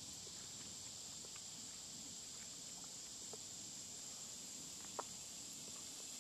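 Faint, steady, high-pitched drone of insects in woodland, with scattered soft ticks and clicks; one slightly louder click about five seconds in.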